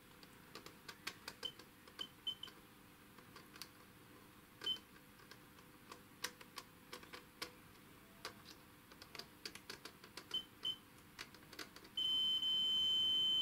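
Multimeter continuity tester: the probe tips click and scrape on wire terminals, and the beeper gives a few very short high chirps on brief contacts. About twelve seconds in comes a steady high beep that holds, showing continuity between the traced wire and the terminal the probe is on.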